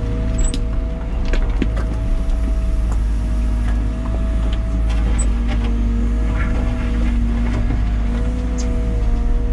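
Liebherr 914 Compact wheeled excavator heard from inside the cab while it works: the diesel engine runs under load with a steady hydraulic whine. Scattered clicks and knocks come from the boom and bucket moving.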